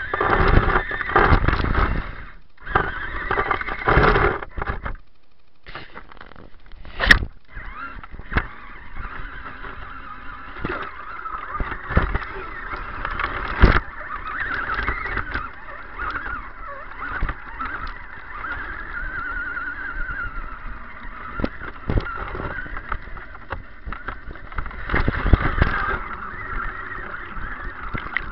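RC crawler's electric motor and drivetrain whining as it drives, the pitch wavering with throttle and cutting out briefly twice, with a few sharp knocks in between.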